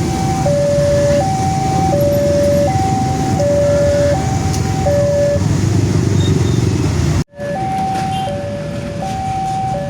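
Indonesian railway level-crossing alarm sounding its repeating two-tone signal, a lower and a higher tone alternating about every three-quarters of a second, which warns that a train is approaching. A low steady rumble runs underneath, and everything breaks off for an instant about seven seconds in before resuming.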